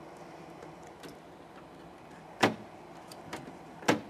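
Two sharp plastic clicks about a second and a half apart, with a few faint ticks between, as the tubing of a 10-gauge EnCor vacuum biopsy probe is pressed into the console's holders.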